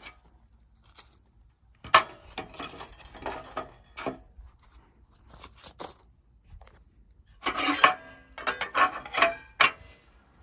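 Plastic pieces scraping and knocking against the inside of a hollow square metal RV bumper tube as they are handled and slid in. The clatter comes in irregular bursts, a few about two to four seconds in and a louder run near the end, with a slight metallic ring.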